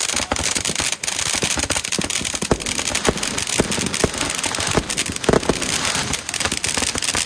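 Many fireworks going off close by: a dense, continuous crackling with frequent sharp pops and bangs throughout.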